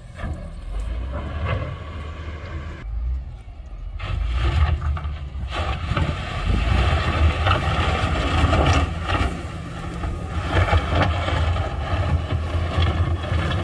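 Heavy diesel construction machinery running with a deep engine rumble. About four seconds in it grows louder, with a noisy clatter over the top.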